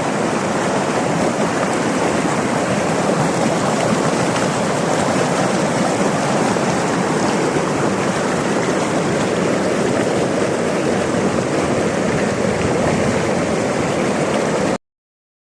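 River water rushing steadily, a dense even sound that cuts off suddenly near the end.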